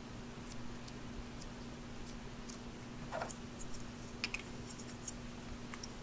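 A few light clicks and taps of hard plastic toy parts being handled: the red tube and yellow plunger of a Play-Doh frosting tool being fitted together, over a faint steady hum.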